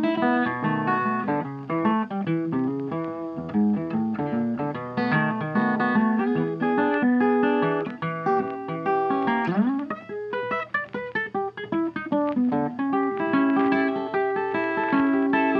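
Background music of plucked guitar playing a picked melody, with one note sliding upward about two-thirds of the way through.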